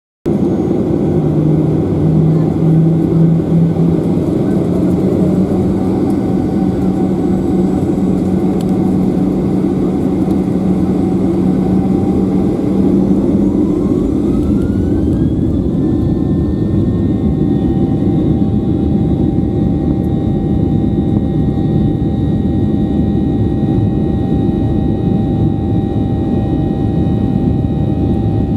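Boeing 737-800's CFM56-7 turbofan engines, heard from inside the cabin: a steady rumble with a whine that rises in pitch about halfway through and then holds steady, as the engines spool up toward takeoff thrust.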